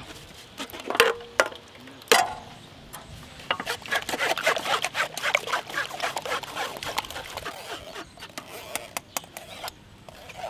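Metal spoons scraping and pressing dragon fruit pulp through stainless steel mesh strainers. A few sharp metallic knocks with a brief ring come in the first couple of seconds, then several seconds of rapid, busy scraping.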